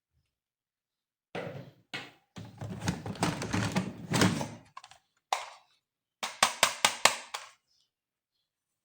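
Plastic toys and packaging being handled: knocks and thuds with scraping in between, then a quick run of about six sharp clicks near the end.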